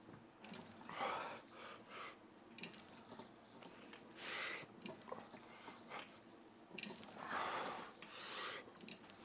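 A man breathing hard through a set of cable tricep pushdowns: a series of forceful, hissing exhales every second or two, with faint clicks between them.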